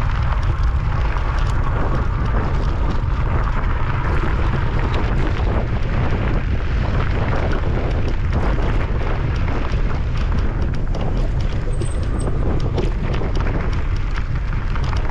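Wind buffeting the microphone: a steady, loud low rumble with crackle over it.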